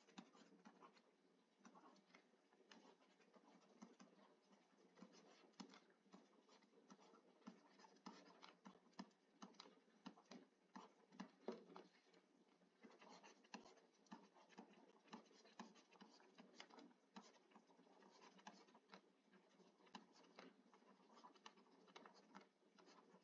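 Faint, irregular scratching and tapping of a stylus writing on a tablet or pen screen, in near silence.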